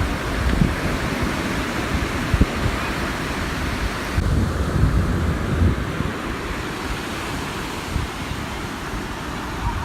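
Ocean surf washing on a beach, a steady rushing noise, with wind buffeting the microphone in low gusts.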